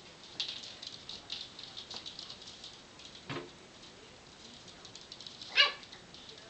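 Yorkie puppies scuffling on a hard floor, with a run of quick scratchy claw clicks and taps, then one short, sharp puppy yip near the end, the loudest sound.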